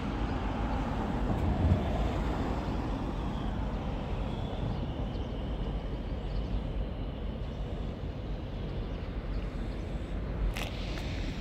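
Steady rumble of city road traffic, with a short click about ten seconds in.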